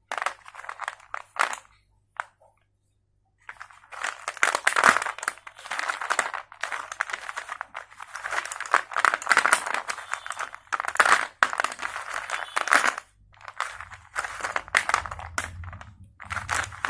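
Slate pencils crunching in repeated bursts of gritty crackling, with a silent pause about two seconds in.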